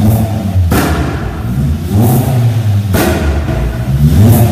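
Loud engine-revving sound effect: an engine rises in pitch in repeated surges, with a sharp hit about once a second.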